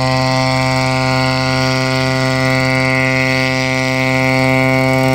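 Small unmanned crop-spraying helicopter's engine and rotor running at a steady drone as it comes down to land on the grass, growing a little louder near the end.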